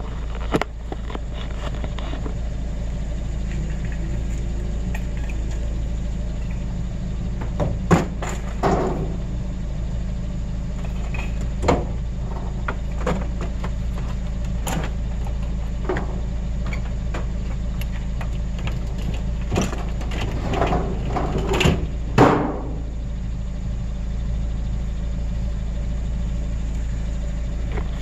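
Vehicle engine idling steadily, with scattered knocks and clanks as scrap is handled and loaded; the loudest bangs come about a third of the way in and again about three quarters of the way in.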